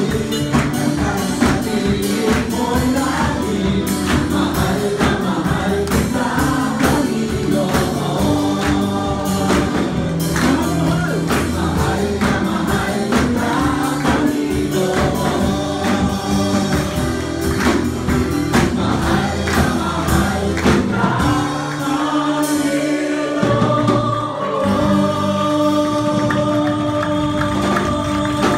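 Congregation singing a gospel worship song with a live band, hands clapping and a beat keeping time. About three quarters of the way through, the beat and clapping drop out, leaving long held chords under the voices.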